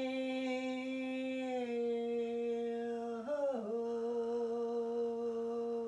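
A woman's voice toning one long held note in a sound-healing chant, steady with a slight drop in pitch early on and a brief waver about halfway through before it settles and holds again.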